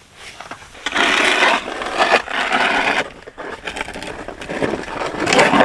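Snow and ice crunching and scraping in two long stretches, one about a second in and one near the end.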